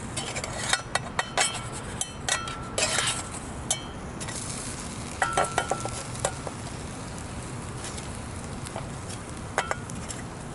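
A metal utensil clinking and scraping against a cooking pan in scattered short clusters, with a brief metallic ring after some of the strikes, over a faint steady sizzle.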